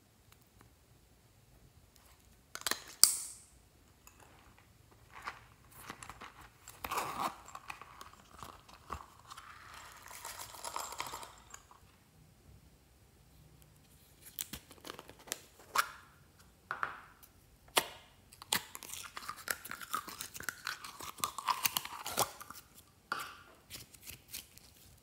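Sticky glitter slime squeezed and folded by hand, making a dense run of wet clicks and crackles in the second half. A single sharp click about three seconds in.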